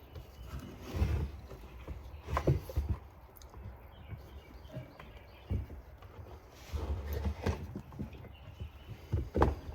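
Irregular knocks, taps and clunks of chainsaw parts and tools being handled.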